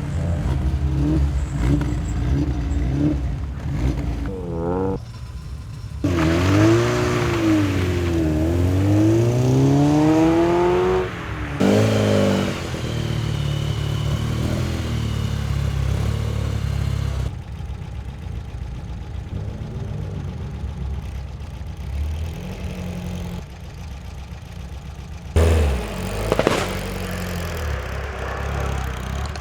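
Competition car engine revving hard as it accelerates up a hillclimb course, its pitch climbing and dropping repeatedly through gear changes, with several sudden jumps in loudness.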